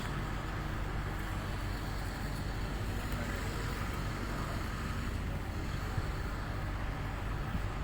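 An engine running steadily with an even, low hum, under outdoor background noise.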